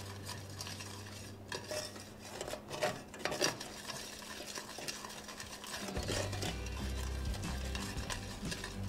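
A spoon stirring caramel sauce in a stainless steel saucepan, with irregular scrapes and clinks against the pan as it works caramel stuck to the pan's side.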